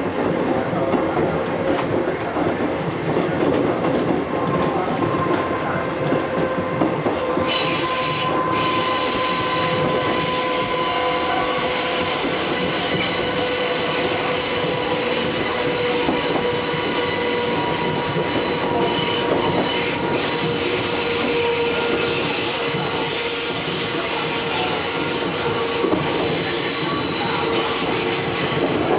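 Konan Railway 6000-series electric train (ex-Tokyu 6000) running, heard from the driver's cab. From about seven seconds in, the wheels squeal with high steady tones as the train takes a curve.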